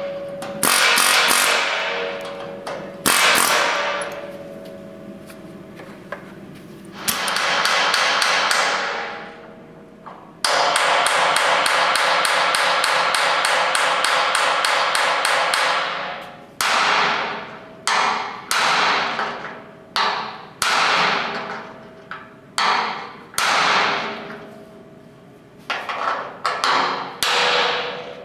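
Pneumatic air hammer with a chisel bit rattling in bursts against the rivets of a steel truck frame's shackle hanger, popping them off; the longest burst lasts about five seconds. From a little past halfway comes a run of short, sharp metal hits about a second apart, each ringing briefly in the steel.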